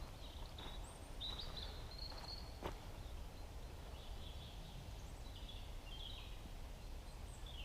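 Small birds singing: short high chirping and warbling phrases, repeated throughout, over a steady low rumble, with one sharp click about two and a half seconds in.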